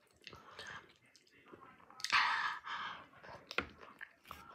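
A person chewing a spicy taco with small wet mouth clicks, then about two seconds in a loud breathy huff out through the open mouth, a reaction to the sauce burning the mouth.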